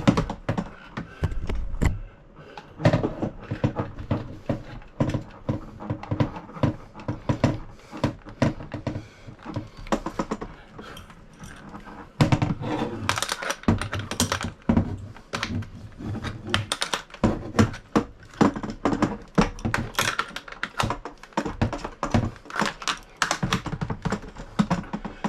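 Irregular clicking, tapping and knocking of hard parts being handled and fitted at an RV toilet during a bidet installation, many short clicks and a few heavier thunks in quick succession.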